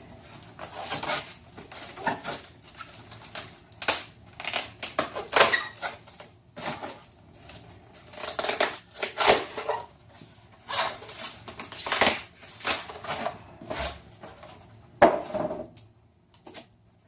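Cardboard box and plastic packaging being opened and handled: irregular rustling, crinkling and scraping with sharp knocks now and then, stopping shortly before the end.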